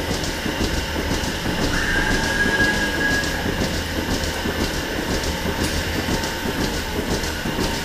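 Milking parlour machinery running: the milking system's steady low hum with repeated faint ticking of the pulsators. A brief high whistle sounds about two seconds in.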